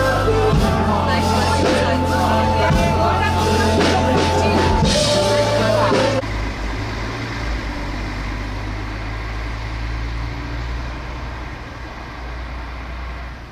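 Music with drums and a heavy bass line, mixed with crowd chatter, cuts off suddenly about six seconds in. A steady low rumble of outdoor background noise, like distant traffic, follows and slowly fades.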